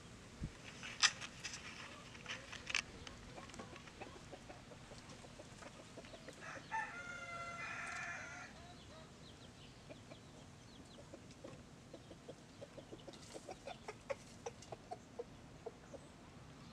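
Chickens: a drawn-out pitched call lasting about two seconds midway, then a run of short, soft clucks, a few a second, toward the end, with scattered light clicks earlier.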